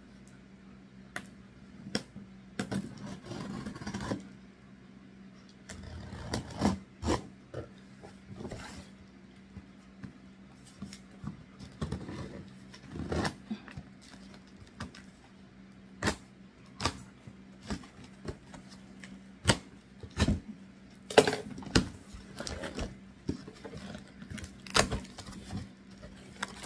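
Scissors slicing and scraping along packing tape on a cardboard box, with short stretches of scraping and irregular sharp taps and knocks as the box is handled and its flaps opened.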